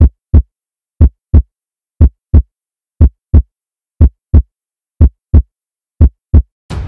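Heartbeat sound effect: seven double lub-dub thumps, one about every second, with silence between them. Music comes in just before the end.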